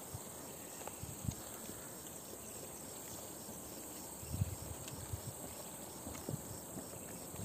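Crickets chirping in a steady, evenly spaced rhythm. A few soft footsteps and knocks of hikers and trekking poles on rocky ground come through it, the loudest about four and a half seconds in.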